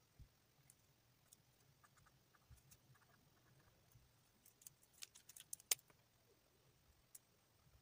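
Near silence with faint scattered ticks of plastic felt-tip markers being handled. About four and a half seconds in comes a quick run of sharp plastic clicks, the loudest just before six seconds, as one marker is set down and another picked up and uncapped.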